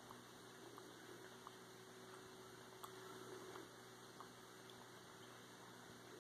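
Near silence: a faint steady hum, with a few soft, irregular clicks from a bobcat suckling on a pillow.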